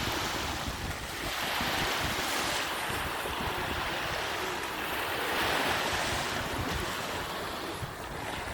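Sea waves breaking and washing up a beach, a steady surf hiss that swells twice as successive waves come in.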